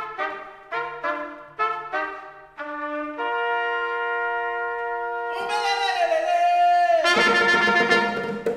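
Brass ensemble playing: short punched chords about twice a second over a bass line, then a long held chord with one line bending in pitch, before the full band comes back in louder near the end.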